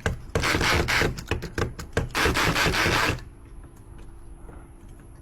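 Metal lock pick raked rapidly through the pins of a lock cylinder, a harsh scraping rasp while the lock is being picked. It runs in two spells with a short break between them and stops about three seconds in.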